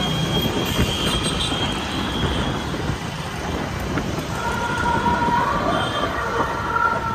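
Steady rumbling noise of a Hero Splendor motorcycle ride through city traffic, mostly wind buffeting the microphone and road noise. A wavering higher tone joins about four seconds in.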